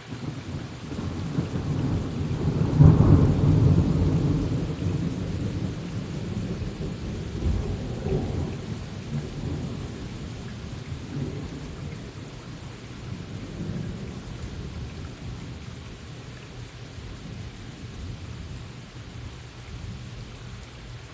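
A long roll of thunder over steady rain: it breaks in suddenly, is loudest about three seconds in, then rumbles on with a few weaker swells and slowly fades.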